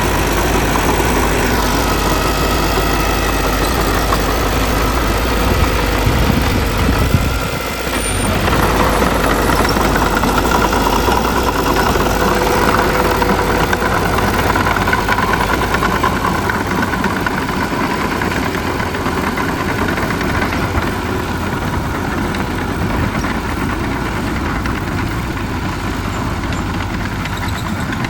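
Heavy earthmoving machinery running, a diesel engine at a steady working pace. There is a brief dip about eight seconds in, and the deep rumble eases in the second half.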